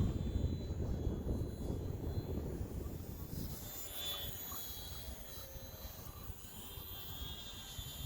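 HobbyZone Sport Cub S2 RC airplane's electric motor and propeller whining in flight, with a thin high whine that comes through more clearly from about four seconds in. Wind buffets the microphone through the first half.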